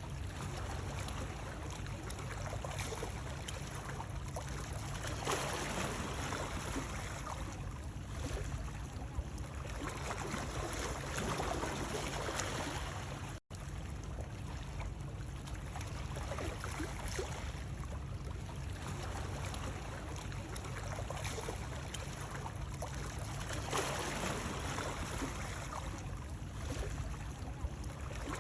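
Ocean waves washing in and drawing back in slow swells, over a steady low rumble. The sound cuts out for an instant about halfway through.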